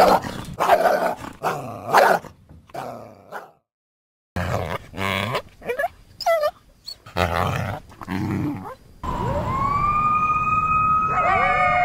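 Coyote calls: a string of short barks and yips, broken by a moment of silence about four seconds in. About nine seconds in a long howl starts, and near the end other voices join in with overlapping howls and yips.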